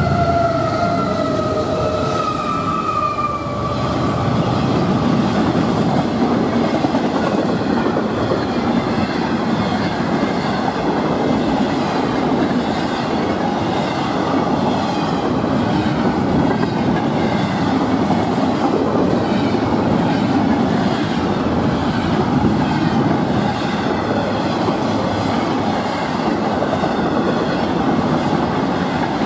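Florida East Coast intermodal freight train passing close by. In the first few seconds a locomotive horn tone slides downward in pitch as the engine goes past. Then comes a steady rumble of wheels on the rails as the container and trailer cars roll by.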